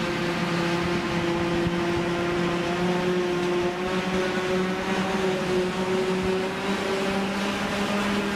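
Tractor diesel engine running steadily under load while it drives a twin-rotor rake through cut silage grass, its pitch creeping up slightly over the seconds.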